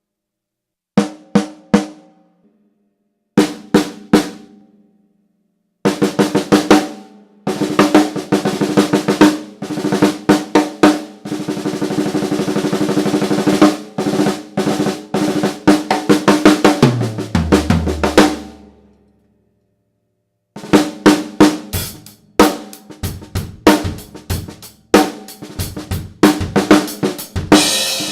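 Chicago Custom Percussion 7-inch-deep snare drum with Evans heads at medium tension, played on its own: single strokes and quick flurries, a sustained roll about halfway through, then more strokes and a groove near the end. Just after the roll a short fill drops down the lower-pitched toms. The snare has a little ring and a lot of body.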